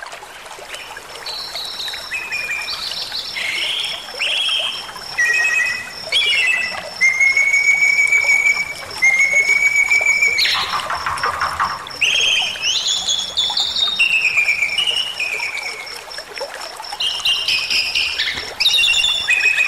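Bali myna singing: a run of clear whistled notes, some held steady for a second or more, broken by one harsh screech about halfway through. Underneath runs the steady rush of a stream.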